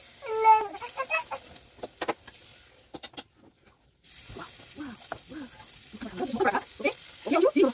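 A toddler's high-pitched squealing calls, with clicks of a metal spoon on a hot griddle and a light sizzle of paratha frying. The sound drops out briefly about three seconds in, and a woman's voice comes in near the end.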